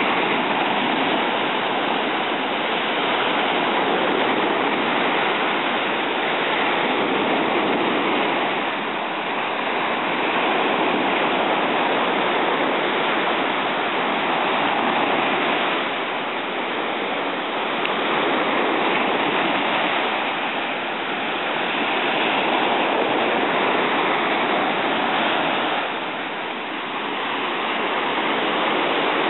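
Ocean surf breaking and washing up the sand, a steady rush of water that swells and eases every few seconds.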